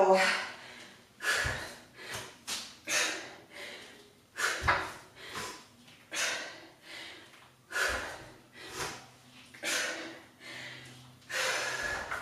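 A woman breathing hard through a set of dumbbell deadlifts: quick, forceful breaths in and out about once a second, with a few soft low thuds among them.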